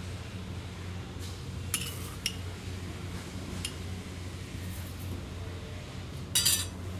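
Metal spoon clinking against a glass bowl: a few light clinks, then a louder clatter near the end.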